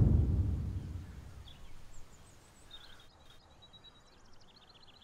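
The tail of a deep, rumbling music swell fades out over the first second or so, leaving quiet outdoor ambience with small birds chirping in short high trills.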